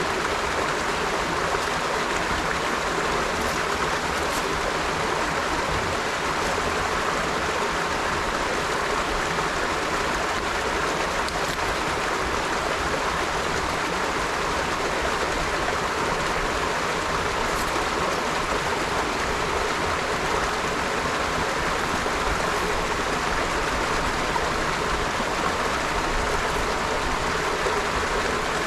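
River water flowing gently, a steady, even rush of running water.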